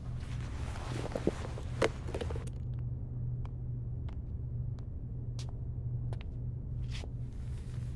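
Slow, evenly spaced footsteps on pavement over a steady low rumble. In the first two seconds there is a rustling with two sharp clicks.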